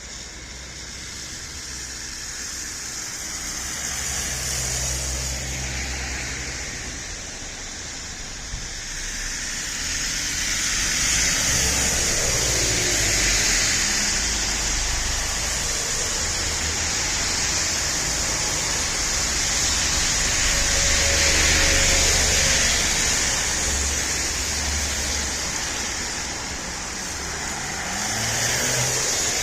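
Road traffic: several vehicles pass one after another over a steady hiss, each pass-by swelling and fading.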